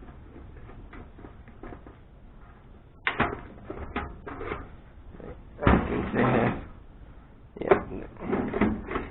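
Knocks, clicks and a longer scrape from a metal computer case being handled and unscrewed by hand as it is taken apart.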